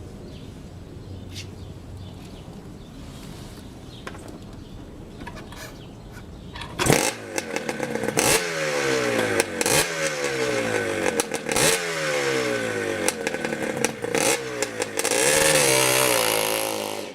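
Faint background for about seven seconds, then a motorcycle engine comes in loud, revved again and again with its pitch sliding down after each rev, dying away near the end.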